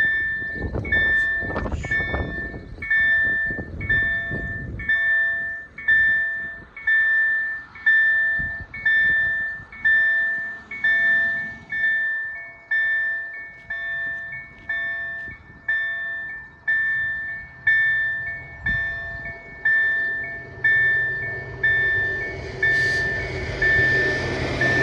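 KLD-4103 level-crossing bell ringing steadily, about one strike a second, warning that a train is coming. Near the end the noise of an approaching train rises under the strikes.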